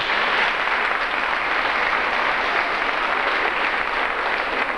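Audience applauding with steady, dense clapping that starts suddenly and begins to thin into separate claps near the end.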